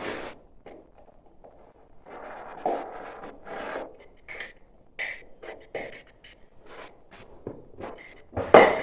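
Irregular handling sounds of hands working materials: short scrapes, rustles and light knocks, with the loudest one near the end.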